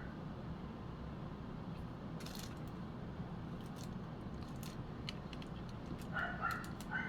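Scattered small metallic clicks and taps from handling a screwdriver and small camera parts, over a steady low hum. Near the end come a few short, high-pitched animal cries, like a dog whimpering.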